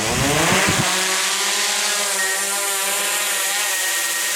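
DJI Mavic 2 Pro quadcopter's propellers whining in flight: a loud stack of buzzing tones that rises in pitch over the first second, then holds steady with slight wavers.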